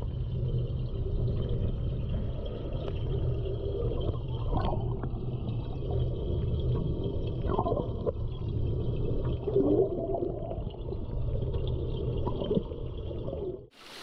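Water in a fish-rearing tank heard underwater: a muffled, steady low rumble with a few gurgles and bubbles. Just before the end it cuts abruptly to the open-air hiss and splash of water spraying into the tank.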